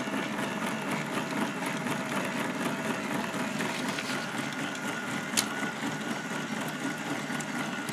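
K'nex motor driving the robot's tape chain and plastic gears, a steady mechanical whirring rattle. With the upper guide piece off the tension wheel, the chain bounces up and down, which makes the running rougher and audible. A single sharp click comes about five seconds in.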